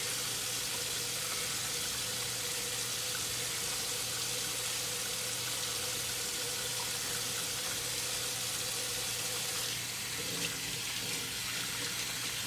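Kitchen tap running steadily into a sink while dishes are washed by hand, with a few light clinks near the end.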